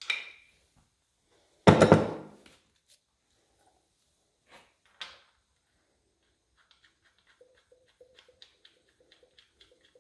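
Hand tools and a compression-gauge fitting handled on the cast-iron head of a Model A Ford four-cylinder engine: a short metallic clank, then a loud thunk with a rattle about two seconds in, two light knocks, and in the last few seconds a run of faint, regular clicks, about four a second.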